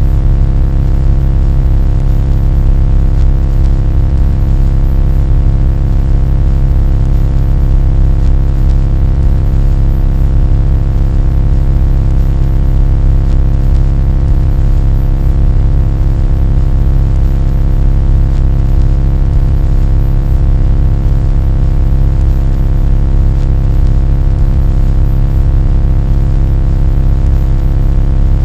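A loud, unchanging mechanical-sounding drone: a heavy low rumble under a cluster of steady humming tones, with a thin high-pitched whine on top.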